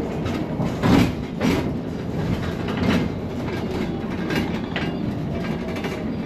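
Inside a moving city bus: a steady low rumble from the drive and road, with rattles and several sharp knocks from the cabin. The loudest knock comes about a second in, others about three seconds in and near five seconds.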